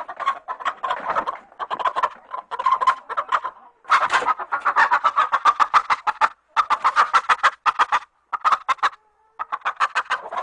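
A chicken clucking in rapid runs of about a second each, with short silent breaks between runs.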